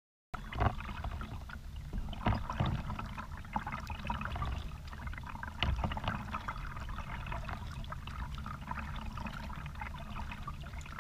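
Kayak paddling: the paddle blades dip and splash in the creek with dripping and small watery ticks over a steady low rumble, with a few louder knocks in the first six seconds.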